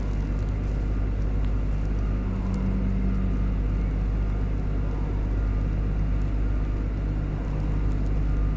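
Engine of the marina's boat-stacking machine running steadily: a low, even drone, with a slightly higher hum held for about a second some two seconds in.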